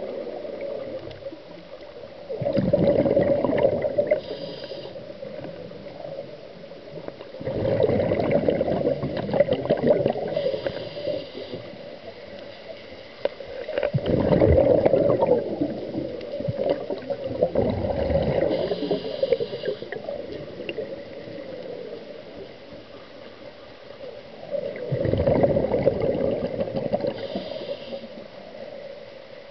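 Scuba diver breathing through a regulator underwater: about five bursts of exhaled bubbles, each burbling for two to four seconds, with a short hiss of inhalation through the regulator between them.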